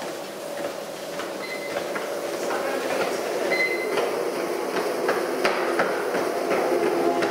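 Treadmill in use for running: the belt and motor running steadily under repeated footfalls thudding on the deck.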